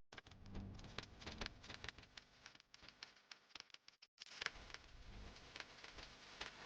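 Near silence with faint, scattered small clicks and taps, the most distinct one about four and a half seconds in.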